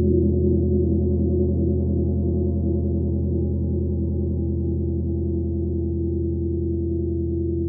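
A 28-inch Black Sun gong ringing on after a soft felt-mallet stroke. Its low tones waver and slowly fade.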